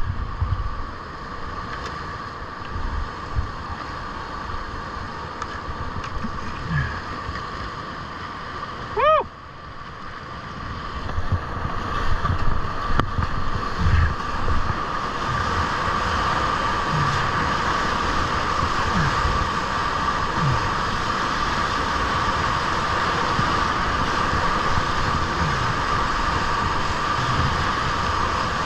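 Whitewater rushing around a kayak on a river wave, with low splashing thumps against the boat. The rush grows louder and steadier from about eleven seconds in as the kayak surfs in the breaking foam. A brief rising-and-falling tone about nine seconds in.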